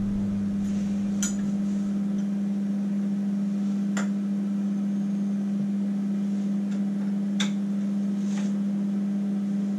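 A steady low hum, with a few faint clicks about one, four and seven seconds in.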